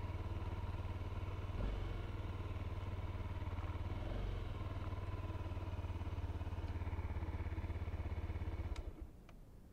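Honda CRF250L's single-cylinder engine running steadily under a rider at low speed. The engine sound stops abruptly near the end, followed by a couple of sharp clicks.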